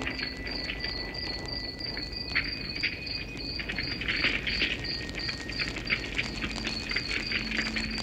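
Campfire of twigs and branches crackling, with scattered sharp pops that cluster about halfway through. Crickets chirp steadily behind it at about four chirps a second.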